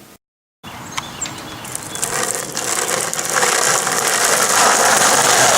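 Skateboard wheels rolling on pavement: an even rolling noise that grows steadily louder, with a single click about a second in.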